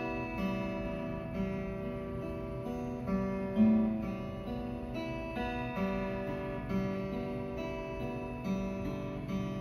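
Acoustic guitar playing slow picked notes and chords, a new note starting about every half second to a second, each ringing on until the next.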